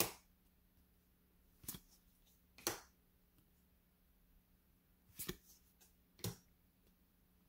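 Trading cards in a hand-held stack being flicked one at a time from front to back, each card making a short, sharp snap against the others; about five in the span, irregularly spaced.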